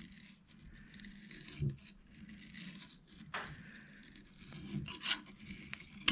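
Hand bearing scraper shaving metal from a small washer: faint scraping strokes, with a light knock about a second and a half in and a sharp click a little past three seconds.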